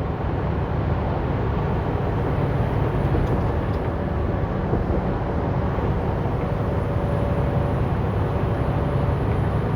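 Steady in-cab road noise from a vehicle driving on a highway: a constant low engine and tyre rumble with a faint steady hum.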